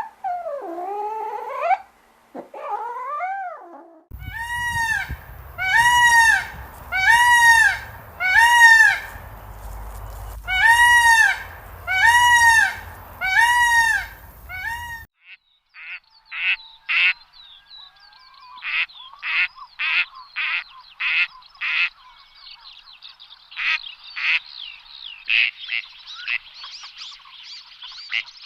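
Birds calling, waterfowl-like. It opens with a couple of gliding calls, then a loud honking call repeats about once a second for some ten seconds, then a quick run of many short, clipped calls.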